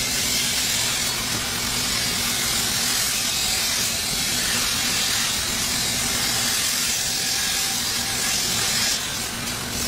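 Belt grinder running with a Damascus steel blade held against the abrasive belt: a steady grinding hiss over a low motor hum.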